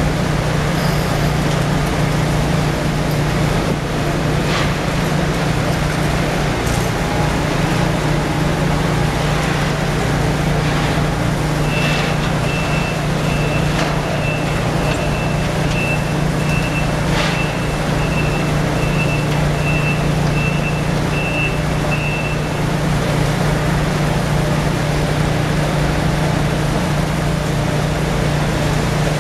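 A steady low engine hum from unloading machinery on the quay. For about ten seconds in the middle, a forklift's reversing alarm beeps about twice a second. A few scattered knocks and clanks come through.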